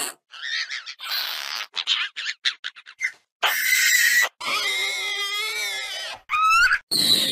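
A string of made-up Compsognathus dinosaur calls: short squeaks, chirps and hissing screeches, each cut off by a brief silence. A longer warbling call comes about halfway through, then fast rising and falling chirps and a screech near the end.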